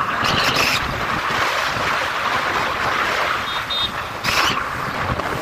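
Wind rushing over the microphone of a camera riding on a moving motorcycle, mixed with road noise, with brief louder gusts about half a second in and just after four seconds.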